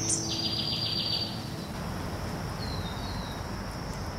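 Wild birds singing: a short high chirp, then a rapid buzzy trill lasting about a second, and two brief notes near the end, over a steady high insect drone.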